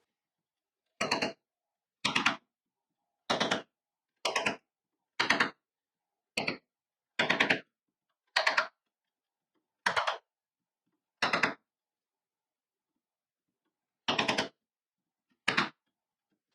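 Hand tools cutting small mortises in a hard mahogany-family wood: about a dozen short bursts of quick knocks, each with gaps of silence between them.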